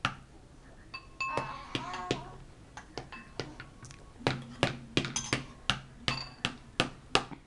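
A fork clicking and tapping against a plastic divided plate as it stabs at food. The clicks are sharp and come in a quick run of about three a second in the second half.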